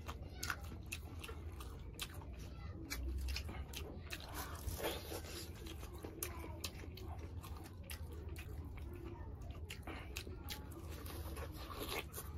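Close-miked eating: biting and chewing meat off a curried chicken leg, with many short, sharp mouth clicks and smacks. A steady low hum lies underneath.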